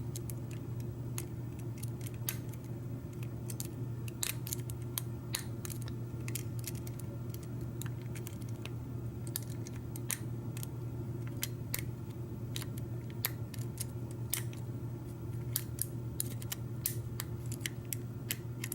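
Lock picks working in a Schlage F-series knob cylinder: irregular light metallic clicks and ticks as the pick works the pins under tension. A steady low hum runs underneath.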